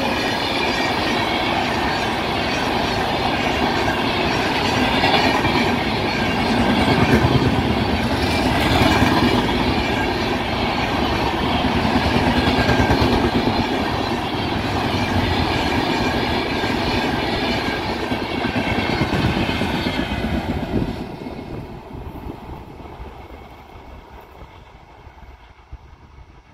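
Passenger coaches of an express train rolling past close by, a steady rumble of wheels on rails that drops off suddenly about 21 seconds in as the last coach goes by, then fades away as the train recedes.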